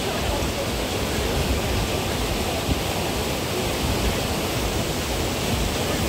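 Steady rushing of whitewater in an artificial rafting channel.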